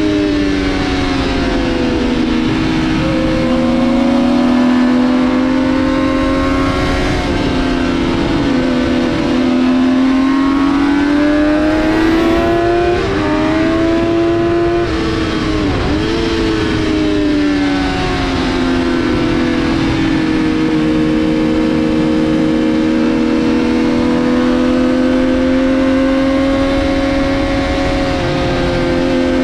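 A Triumph Daytona 675R's inline three-cylinder engine running hard at track speed, heard from on board over wind rush. The engine note falls and climbs as the bike brakes and accelerates, with a quick dip and recovery about halfway through as it shifts gear.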